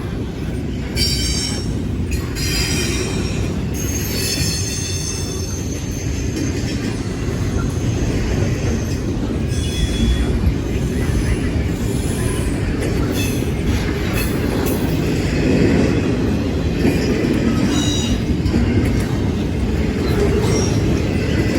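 Canadian National freight train's cars rolling past with a steady low rumble, and several short bouts of high-pitched wheel squeal coming and going.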